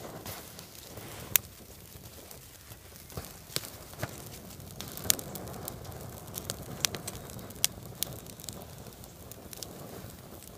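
Small kindling fire of dry twigs and tissue catching, with irregular sharp crackles and snaps over a low rustling of twigs being handled.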